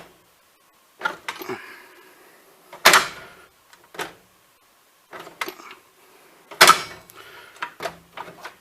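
Steel drawers of a Bahco tool chest being pulled out and pushed shut, with sharp metal knocks and clatters; the two loudest bangs come about three seconds in and about two seconds before the end, followed by a run of lighter clicks. The drawers run stiffly and some won't close properly.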